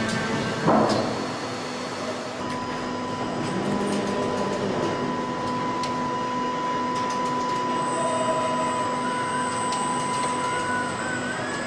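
Production-line machinery running: a steady mechanical hum and hiss with a single thud about a second in, a high steady whine that starts about two seconds in, and scattered clicks.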